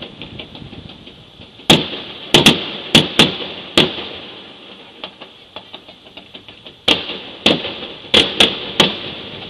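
Fireworks bursting overhead: a quick run of about six sharp bangs a couple of seconds in, fainter pops and crackles in between, then another run of about five bangs near the end.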